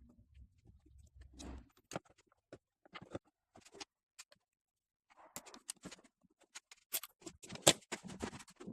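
Irregular clicks, taps and knocks of small objects being handled, with a low hum in the first second and a half and the sharpest click a little before the end.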